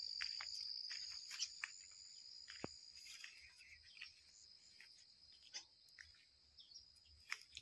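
Faint steady high-pitched drone of insects, fading toward the end, with scattered faint clicks.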